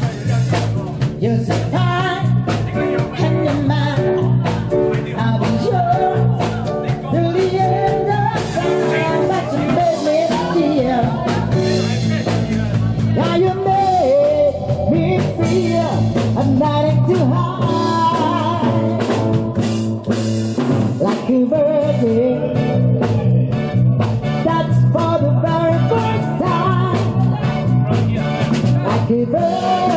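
Live band playing a dance song: a singer over guitar, bass and drums, with a steady beat.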